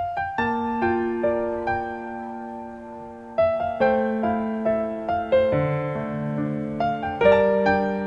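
Background piano music starting suddenly, with unhurried single notes over held chords.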